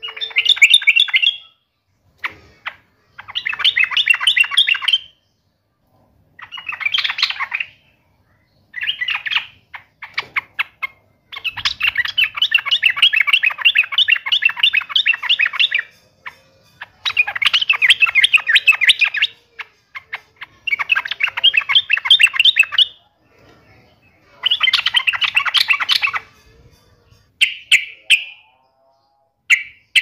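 Yellow-vented bulbul (trucuk) singing in repeated bursts of fast, bright chattering notes, each burst lasting from under a second to about four seconds, with short pauses between them.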